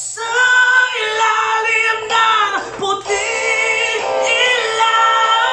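A man singing long, high held notes of a slow ballad, with short breaks for breath about one and three seconds in.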